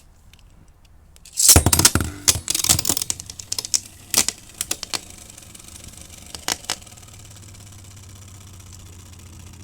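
Two Beyblade spinning tops launched together about a second and a half in, then clicking against each other in several sharp knocks before settling into a steady spinning whir.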